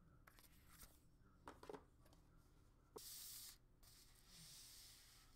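Near silence with faint handling sounds of a tablet and its cardboard packaging: a few soft clicks about one and a half seconds in, then a click and a short faint rustle about three seconds in, and a weaker rustle after it.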